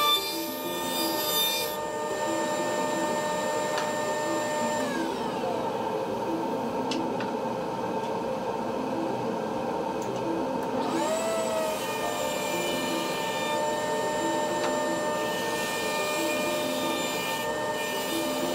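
Table saw running with a steady whine while a walnut cutting-board blank is fed through it. About five seconds in, part of the whine falls in pitch as a motor winds down; around eleven seconds a motor starts up again with a rising whine, and the cutting noise returns.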